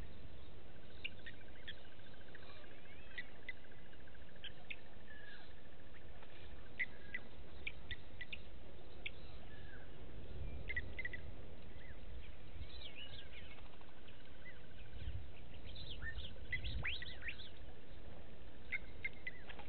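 Wild birds calling: scattered short, high chirps and whistles, some sliding in pitch, with a fast trill during the first few seconds, over a steady low background rumble and hiss.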